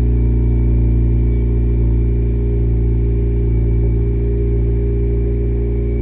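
A 2022 Honda Civic Si's 1.5-litre turbocharged four-cylinder engine idling steadily, just after being started.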